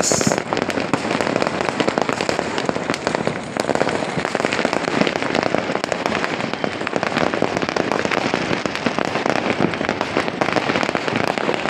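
Many fireworks and firecrackers going off at once, a continuous dense crackle of overlapping pops and bangs with no break.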